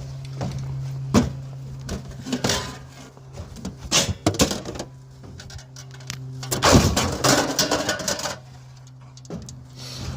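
Knocks, clatter and scraping of scrap being handled and loaded, with a longer, louder scraping rush about two-thirds of the way through, over a steady low hum.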